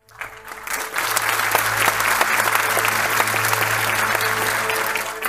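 Audience applauding, swelling over the first second into steady, dense clapping, over a faint steady low hum.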